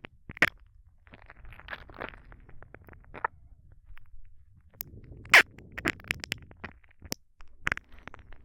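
Close-up kiss sounds: a string of short, wet lip smacks at irregular intervals, some soft and a few sharp, the loudest about half a second in and about five and a half seconds in.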